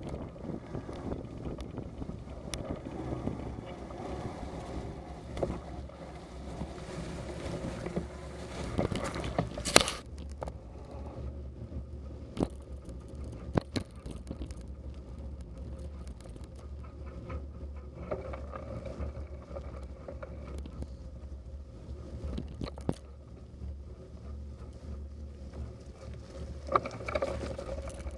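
Bicycle riding over a rough country lane and a wet dirt track: a steady rumble and rattle from the tyres and bike, with wind on the microphone. Several sharp knocks come from bumps, the loudest about ten seconds in and a few more in the middle and near the end.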